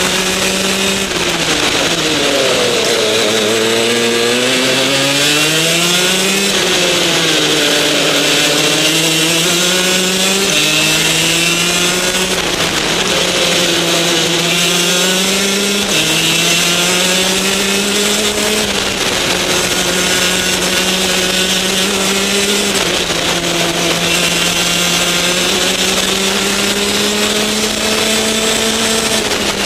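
Rotax DD2 kart's 125cc two-stroke engine heard onboard at racing speed, its pitch dropping sharply as the driver brakes for corners and climbing again under acceleration, several times over.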